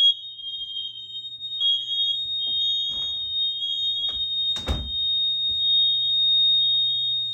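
Several household smoke alarms (Gentex, BRK and Kidde) sounding together, set off by smoke from a cooking accident: one steady shrill tone with a second shrill beep pulsing on and off over it. About four and a half seconds in there is a single loud thump.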